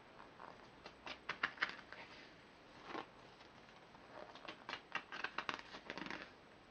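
Pages of a paper rulebook being handled and turned: a few short papery flicks and rustles about a second in, then a quicker run of them in the second half.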